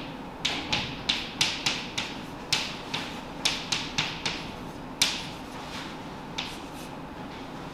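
Chalk writing on a blackboard: a quick run of sharp taps, a few a second, thinning out after about five seconds to a couple of single taps.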